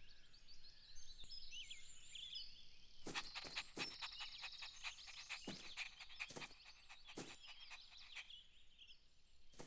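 Faint outdoor nature ambience: birds chirping and twittering, with a run of quick irregular clicks and chatter through the middle.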